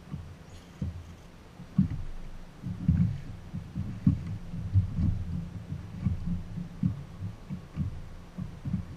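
Small waves slapping against the boat's hull in low, irregular thumps, sometimes several a second.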